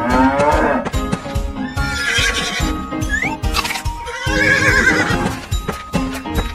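Background music with a steady beat over sound effects of a horse whinnying and hooves clip-clopping; the clearest whinny comes a little past the middle.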